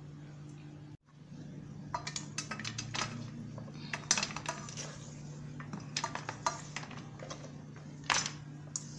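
A metal spoon scraping and clinking against a stainless steel bowl as a chocolate biscuit mixture is tipped out into a steel cake pan, in quick irregular clicks and scrapes, over a low steady hum.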